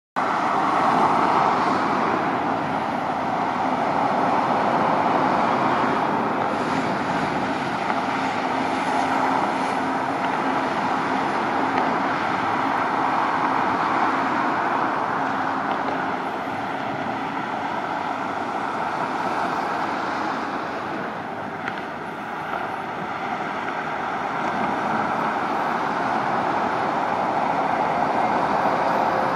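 Steady motorway traffic noise from the M48 and the Severn Bridge, a continuous rush of passing vehicles that swells and eases slightly.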